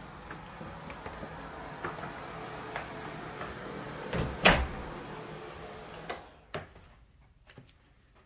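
Interior door being handled: one sharp, loud knock about halfway through, then clicks a couple of seconds later as a door is shut. A steady hum under the first part stops at about the same moment.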